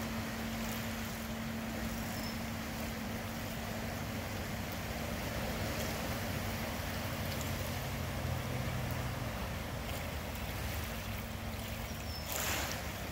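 Steady drone of distant engines over outdoor background noise, one low hum holding throughout and a second, lower hum joining for a couple of seconds midway. A brief rush of noise near the end.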